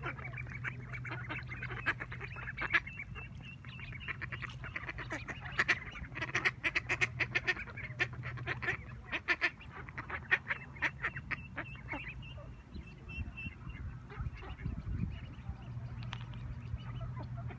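A flock of mallard ducks quacking in rapid, overlapping runs of short calls, busiest for the first two-thirds and thinning out to scattered calls near the end.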